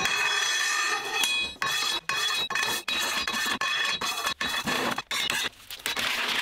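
Steel bars and square tubing clattering and scraping as they are dropped and slid onto a steel-topped workbench, the metal ringing after each hit. The clatter breaks off abruptly several times.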